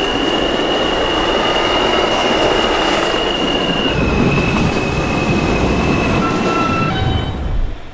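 New York City subway E train running underground between stations, its wheels squealing with a high steady tone that shifts pitch a few times over a loud rumble. The noise drops suddenly near the end.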